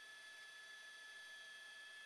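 Near silence: a faint steady hiss with a thin, high, unchanging tone.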